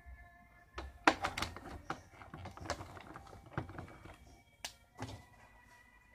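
Irregular clicks, taps and knocks of small hard objects being picked up and handled, the loudest knock about a second in.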